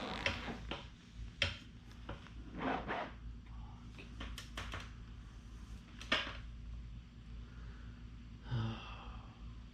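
Scattered light clicks and knocks of hands handling parts and the bike, over a steady low hum, with a short low vocal sound near the end.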